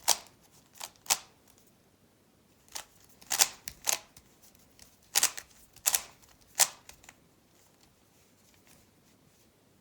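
Speedcube layers being turned by hand: about nine sharp plastic clacks at uneven intervals, stopping about seven seconds in.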